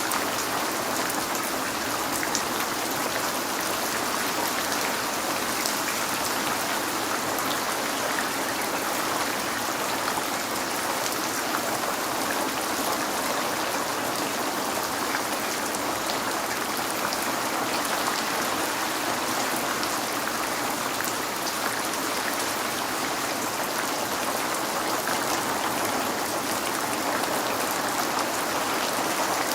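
Steady rain falling on a window, a constant hiss of rain with scattered individual drop ticks, unchanging in level.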